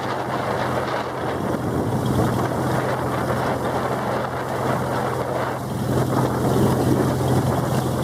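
Motor of an outrigger banca boat running steadily under way, a low hum with wind buffeting the microphone and water rushing past the hull; it grows slightly louder near the end.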